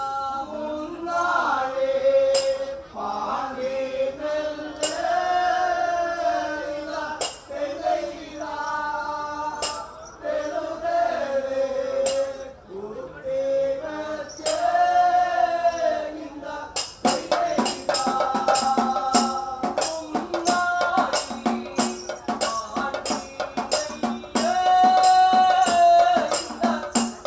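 Kanyarkali folk song: men's voices singing a slow melodic line with only a few scattered strikes. About two-thirds of the way in, drumming and fast rhythmic percussion come in under the singing.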